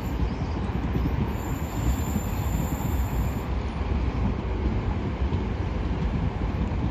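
South Western Railway class 701 electric multiple unit rolling past at low speed, its wheels on the rails making a steady low rumble.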